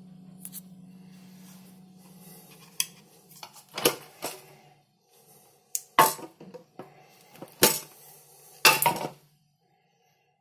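Metal clinks and knocks from the radiometer's metal plate, bent wire handles and housing being handled: a handful of irregular sharp clanks, the loudest near the end. A low steady hum runs under the first few seconds and fades out.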